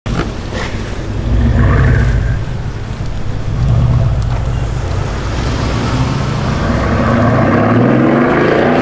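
Mercedes-AMG S63 coupe's twin-turbo V8 through a custom exhaust, loud as the car pulls away and accelerates, the engine note climbing in pitch near the end.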